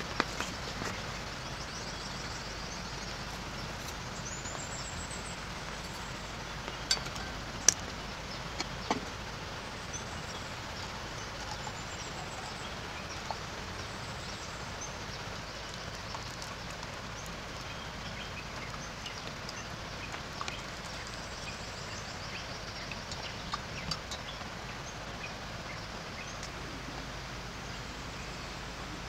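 Outdoor ambience: a steady, even hiss with short, high chirping calls now and then, and a few sharp knocks about seven to nine seconds in.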